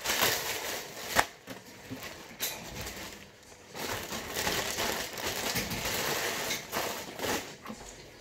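Close rustling and crackling against the phone's microphone, as fabric or fur rubs over it, in two long stretches with a sharp knock about a second in.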